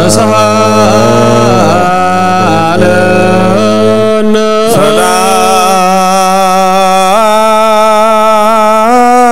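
Ethiopian Orthodox liturgical chant sung by clergy: long, wavering held notes, with a low sustained note beneath that drops out about four seconds in.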